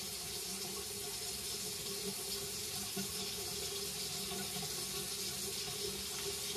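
Bathroom sink tap running steadily into the basin: an even water hiss.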